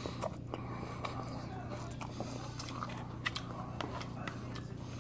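A person chewing a mouthful of poke bowl salad, close to the microphone: soft, irregular wet mouth clicks and smacks.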